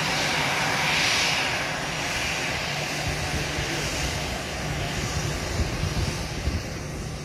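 Airbus A319 jet's twin turbofan engines running at taxi power: a steady hissing jet whine over a low hum, loudest about a second in and easing slightly as the aircraft turns side-on.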